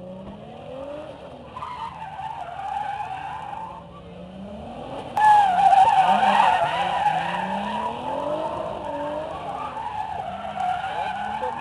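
Toyota Supra coupe in a motorkhana run, its engine revving up and down over and over while the tyres squeal as it slides around cones. The squeal and engine get much louder suddenly about five seconds in.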